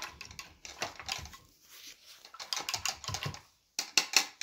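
Paper towel crinkling as paint is wiped off a brush: irregular clusters of small crackles and clicks, the loudest group near the end.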